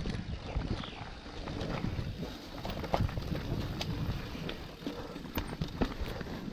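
Mountain bike riding down a dirt trail, heard from the rider's own bike or helmet: tyre noise and wind on the microphone, with scattered sharp knocks and rattles from the bike going over bumps.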